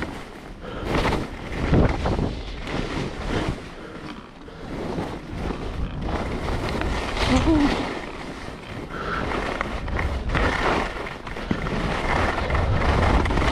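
Skis hissing and scraping through snow in a run of turns, swelling with each turn, with wind rushing over the camera's microphone.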